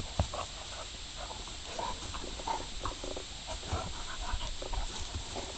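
A bullmastiff puppy and a Labrador puppy play-fighting, with short, irregular growls and vocal noises as they wrestle.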